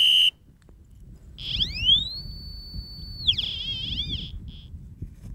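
A loud whistle blast at one steady pitch cuts off just after the start. Then a hand-held mine detector's electronic tone glides up to a high held note, holds for about a second, falls away and warbles in quick wobbles.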